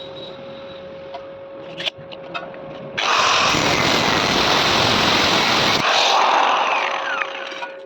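Loud metalworking machine noise starts suddenly about three seconds in and runs steadily for about three seconds. It then cuts back, leaving a hiss and a falling whine that fade out over the next second and a half.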